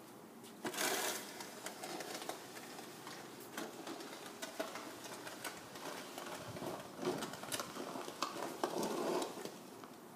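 Snow shovel blade scraping along a paved driveway in repeated pushes, a gritty rasp full of small clicks from slush and ice. It starts about half a second in and stops near the end, loudest at the start and in the last few seconds.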